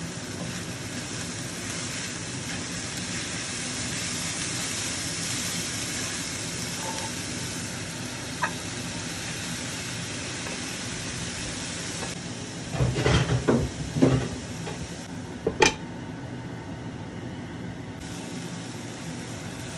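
Diced onions sizzling in hot oil in a frying pan, a steady hiss. About two-thirds of the way through comes a run of clattering knocks, then one sharp knock, as tomatoes go into the pan and a spatula knocks and scrapes against it.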